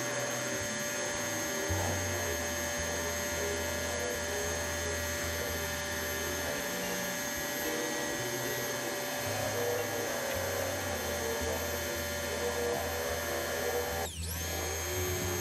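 Electric pressure washer running with a steady high whine as it sprays through a deck surface cleaner. Near the end the motor cuts out for a moment and spins back up.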